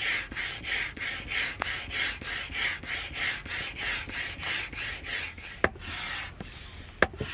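Hand pump inflating an inflatable stand-up paddleboard through its hose: a rhythmic hiss of air with each stroke, about three strokes a second. After about five seconds the strokes turn less regular, with a few sharp clicks.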